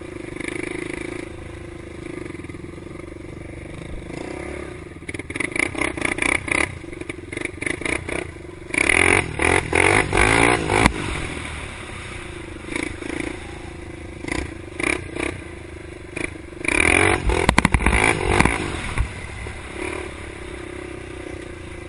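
Honda ATC 350X three-wheeler's single-cylinder four-stroke engine running under the rider, with three spells of hard revving between stretches of steadier running.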